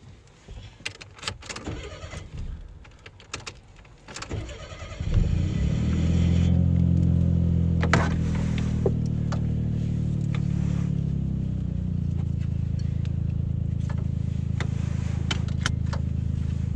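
Small clicks and rattles, then about five seconds in a car engine cranks, catches and settles into a steady idle, heard from inside the cabin; a few seconds later the idle eases back a little.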